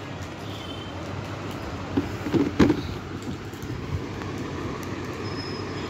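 Clear plastic storage container being handled and turned, with a few light knocks and rustles about two seconds in, over a steady background rumble.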